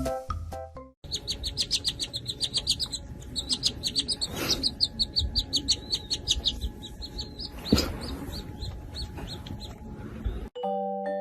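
Baby birds peeping: quick, high-pitched peeps repeated several times a second, with two short knocks midway. Background music plays briefly before and after.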